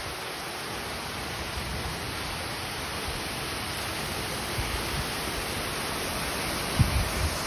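Heavy rain pouring down, a steady dense hiss, with a couple of brief low thumps about four and a half and seven seconds in.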